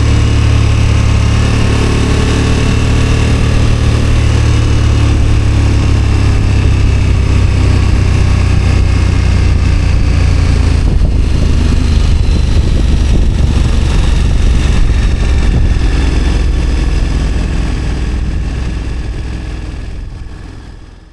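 KTM 1290 Super Adventure S's V-twin engine running while riding at road speed, with steady wind rush over the on-board camera's microphone. The sound fades out over the last few seconds.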